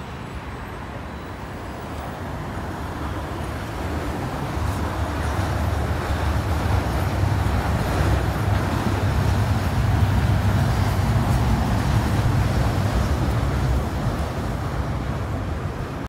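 Road traffic going by: the steady rumble of car engines and tyres on a multi-lane road, growing louder over the first few seconds and easing a little near the end.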